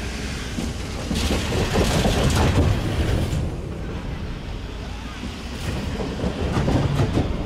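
A Meitetsu electric train running past out of view, a steady rumble of wheels on rail that swells for a couple of seconds about a second in, mixed with wind buffeting the microphone.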